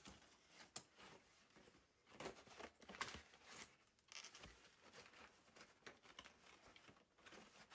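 Faint handling of an old cardboard ornament box: soft scattered rustles and light clicks as the box is turned and its flaps are moved.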